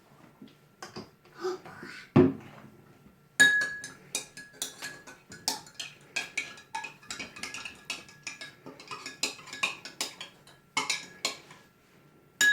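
A utensil clinking against a bowl in fast, irregular strokes while stirring a baking soda, food-colouring water and washing-up liquid mixture, with a faint ringing from the bowl. A few knocks come first, the loudest about two seconds in, and the stirring starts about three and a half seconds in.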